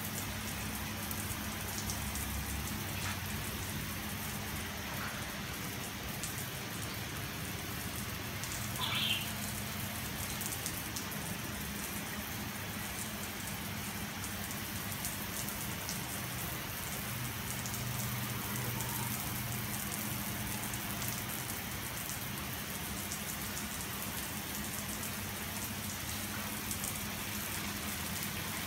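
Garden hose nozzle spraying a strong jet of water onto a tiled floor, a steady hiss and patter of spray hitting the wet tiles. A short high chirp cuts in about nine seconds in.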